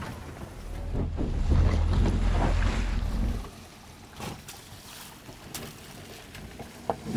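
A low rumble of wind buffeting the microphone fills the first three seconds or so, then stops abruptly. Under it, a Ford Focus hatchback moves slowly over a deeply rutted dirt track, and a few light knocks come after the rumble stops.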